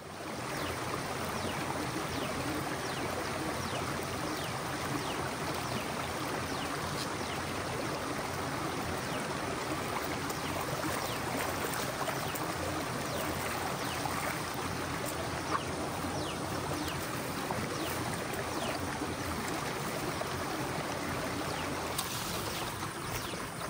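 A creek running steadily over rocks: an even, unbroken rush of flowing water.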